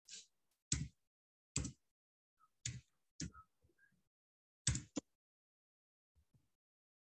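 Computer keyboard keys pressed one at a time: about seven separate, sharp clacks at an uneven, unhurried pace, as a short code is typed in.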